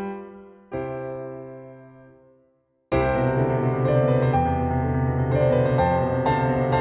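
Background piano music: a sustained chord fades away to a moment of silence, then a fuller, louder passage with bass and piano starts abruptly about three seconds in.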